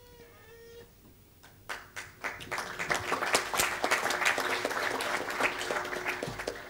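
Audience applauding: a few scattered claps about a second and a half in, swelling quickly into steady, dense applause.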